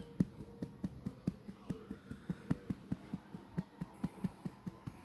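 Hound breathing in quick, even pulses, about five a second, after a fit of sneezing.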